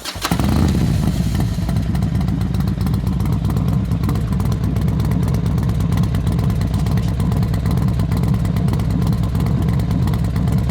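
Harley-Davidson V-twin motorcycle engine running steadily at an even speed, a deep, loud rumble.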